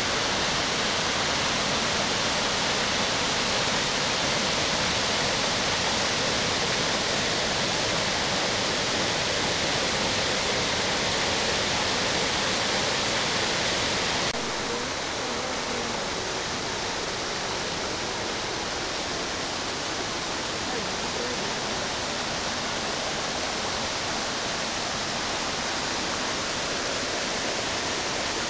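Steady rush of water pouring over rock at the top of a waterfall. About halfway through the sound drops suddenly to slightly quieter and duller, then carries on steadily.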